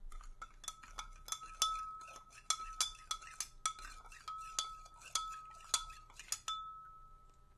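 A metal spoon stirring salt into water in a glass beaker, clinking repeatedly and irregularly against the glass, which rings with a steady tone. The clinks stop about six and a half seconds in and the ring dies away.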